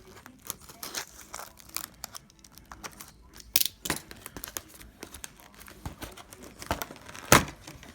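A sealed trading-card box being unwrapped and opened by hand: wrapping crinkling and tearing in scattered crackles and clicks, with a sharp snap about seven seconds in, the loudest sound.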